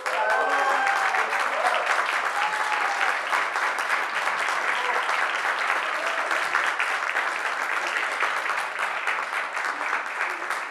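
Audience applauding, with a few cheers in the first few seconds.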